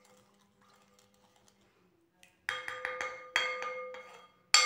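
A wooden spoon knocked about five times against the rim of a textured glass bowl, starting about halfway in; each knock makes the glass ring with the same clear tones. Before that, faint stirring of lemon juice and sugar in the bowl.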